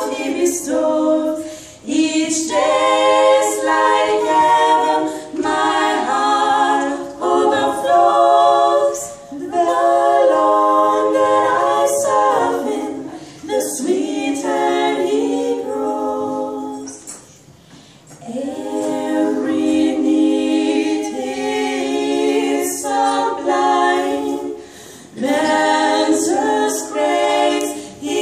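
Three women singing together unaccompanied, in sung phrases with short breaks between them and a brief pause about two-thirds of the way through.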